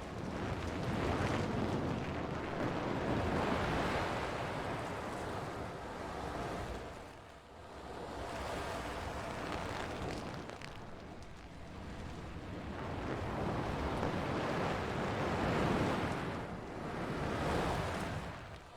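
Rushing, hissing noise that swells and fades in slow waves every few seconds, with a brief dip about seven seconds in.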